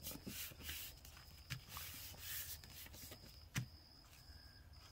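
Faint rubbing and rustling of hands smoothing a freshly glued paper envelope down onto a journal page. A couple of soft knocks are heard, the clearest about three and a half seconds in.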